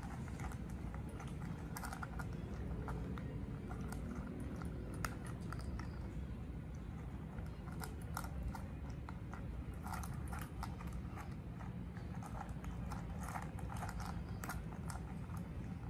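Two cats eating from stainless steel bowls: irregular chewing and crunching clicks, over a steady low background hum.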